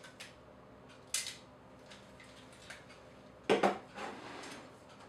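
Hard objects being handled and set down: a sharp click about a second in, then a louder double knock about three and a half seconds in, as cameras are swapped on a surface.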